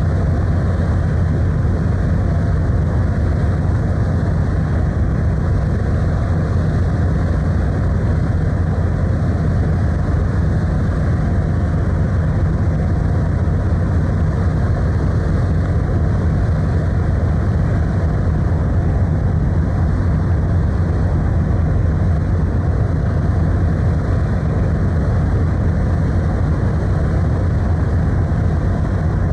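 Ferry Kuniga under way: a steady low rumble with a rushing noise over it, unchanging throughout.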